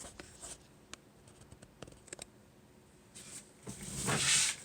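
Handling noise: scattered light clicks, then a louder rustling near the end.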